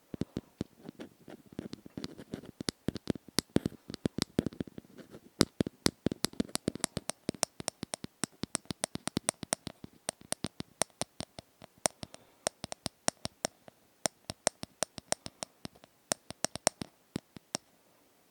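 ASMR tapping: quick, sharp, close-miked taps and clicks, several a second in an uneven run, stopping just before the end.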